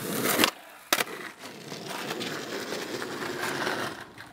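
Skateboard wheels rolling over rough tarmac, cut off abruptly at about half a second. A single sharp clack of the board hitting the ground follows about a second in, then the wheels roll steadily at a lower level until near the end.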